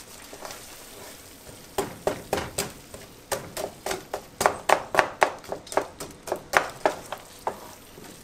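Wooden spoon stirring frozen peas into thick, creamy chicken pot pie filling in a nonstick skillet. From about two seconds in comes a quick series of knocks and squelches, about three a second, as the spoon strikes and scrapes the pan. The strokes are loudest midway and trail off near the end.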